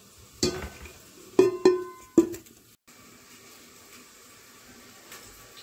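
Kitchenware knocking together: four sharp, ringing clanks in quick succession, the middle two close together. A low, steady background follows.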